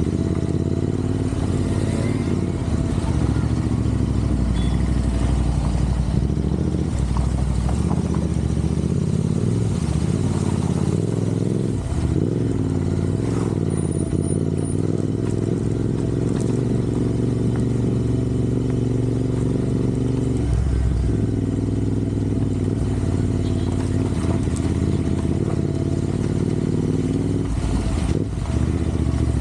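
Royal Enfield Interceptor 650's parallel-twin engine running while riding, with a low rumble and a few brief changes in the engine note, as at gear changes.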